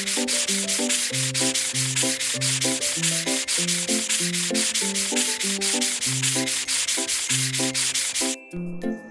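Cartoon brush-scrubbing sound effect: bristles rubbing in quick, even strokes, about six a second, stopping shortly before the end. Under it plays a bouncy background tune with a bass line.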